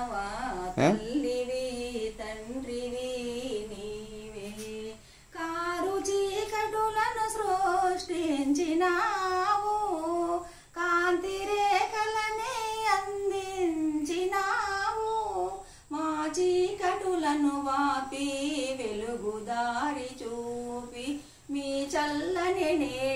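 Women singing a devotional aarti song in phrases of about five seconds with short breaks between them, softer at first.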